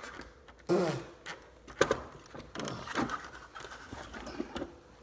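A man's short wordless vocal sounds, several in a row, the first one falling in pitch.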